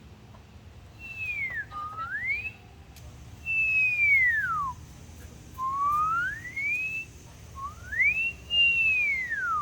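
A person whistling a run of long pitch slides: down, up, down, up, then an up-and-down arch, each lasting about a second with short gaps between them.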